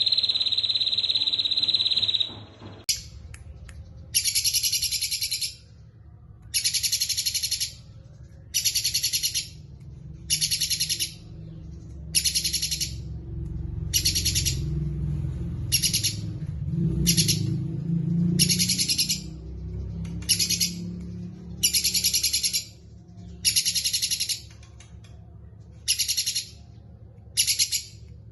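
A small songbird repeating a short, rapid, high trilled phrase about every one and a half to two seconds. It follows a steady high buzz that cuts off about two seconds in.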